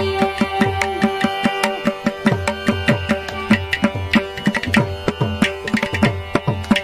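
Mridangam and ghatam playing a quick run of rhythmic strokes between sung lines of a Carnatic song in Adi tala. Some of the bass strokes drop in pitch, and a steady drone holds underneath.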